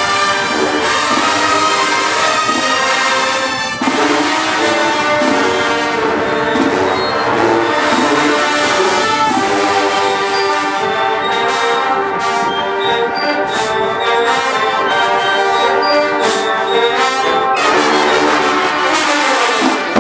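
A marching band's massed brass plays loud held and moving chords, with percussion hits cutting through. The sound breaks briefly about four seconds in, and the pitches slide downward near the end.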